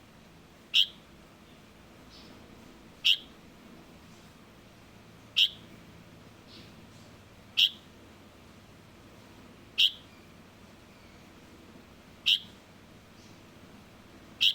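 Light-vented bulbul fledgling giving short, sharp single chirps, evenly spaced about every two and a quarter seconds, seven in all.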